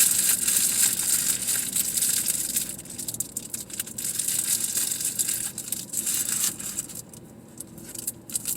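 Paper or plastic food packaging crinkling and rustling as it is handled, loud for about three seconds, again for about three more, then a few short rustles near the end.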